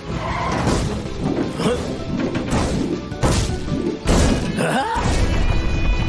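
Cartoon music with a series of about five crashing, smashing sound effects over a heavy low rumble.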